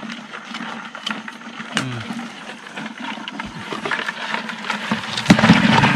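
Bamboo tube crab trap being handled and tipped over a plastic bucket: scattered knocks and scrapes of the bamboo, growing louder and denser near the end.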